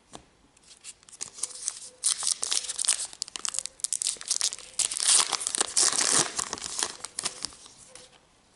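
A trading-card pack wrapper being torn open and crinkled. It is a dense crackling rustle that starts about a second in, is loudest a little past the middle, and dies away shortly before the end.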